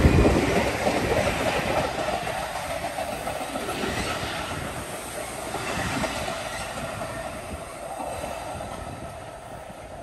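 A train rolling past on the BNSF main line, loudest at the start and fading steadily as it moves away.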